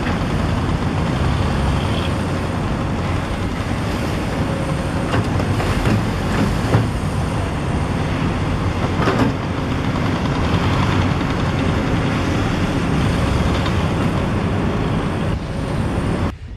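WORLD crawler excavator's diesel engine running steadily as it digs in a wet pit, with a few sharp knocks about six and nine seconds in. The sound drops away suddenly just before the end.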